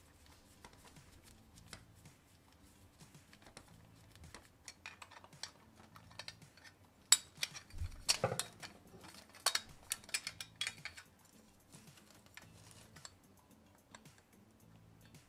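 Light clicks and scrapes of small hand tools on the plastic parts of a model car. They are sparse at first, then come thick and louder from about seven to eleven seconds in, with one sharp click near seven seconds.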